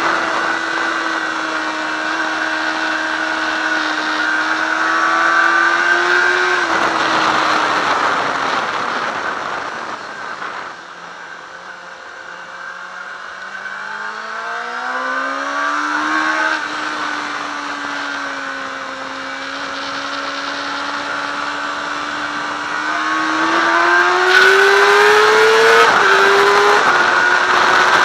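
Yamaha R6's inline-four engine on a track lap, heard from on the bike: it holds steady revs, drops off as the throttle is closed about seven seconds in, then climbs back up and rises hard near the end with a gear change, under heavy wind noise.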